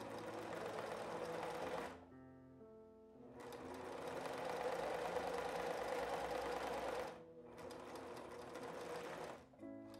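Electric home sewing machine stitching a folded fabric edge: a run of about two seconds, a short stop, then a longer run of nearly four seconds, quieter near the end. Soft background piano music plays underneath.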